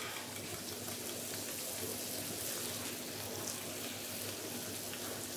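Fried potatoes and sausage sizzling steadily in a frying pan on a gas hob.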